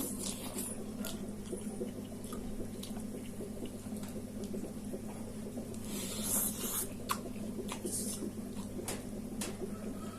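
A person eating spicy noodles close to the microphone: wet chewing and slurping with scattered small clicks, and a louder slurp about six seconds in, over a steady low hum.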